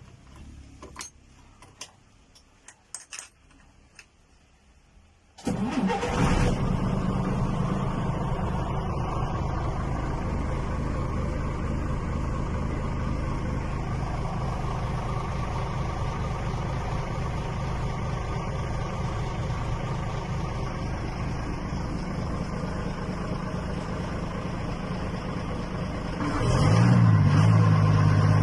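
Ashok Leyland Tusker's Hino diesel engine starting: a few faint clicks, then the engine fires about five seconds in and settles to a steady idle. Near the end it is revved up and let fall back, twice.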